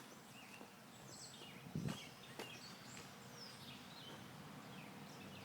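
Quiet outdoor ambience with birds chirping now and then in short, high, falling calls. There is a soft click at the start and a soft knock about two seconds in.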